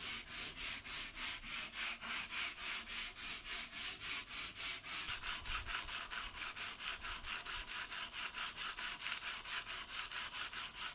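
Garnet sandpaper rubbed by hand back and forth along a wooden strip. It makes quick, even scratching strokes, about four a second.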